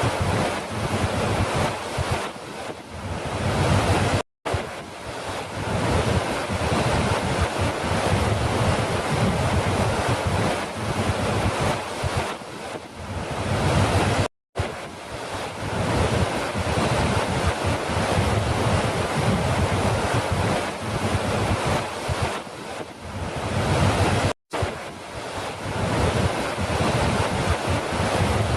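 Steady rush of falling water, a dense even hiss and roar. It cuts out for a split second three times, about ten seconds apart, as the recording loops.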